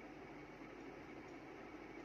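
Faint, steady background noise with a low hum: room tone, with no distinct sound events.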